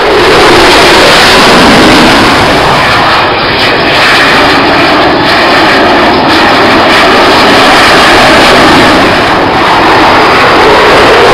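Loud, steady roar of a jet aircraft flying low past at an air show.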